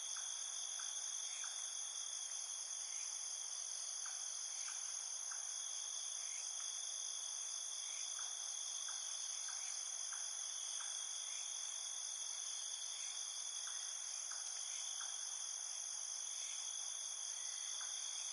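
Steady insect chorus: several high-pitched trills held without a break, with faint short chirps scattered through it.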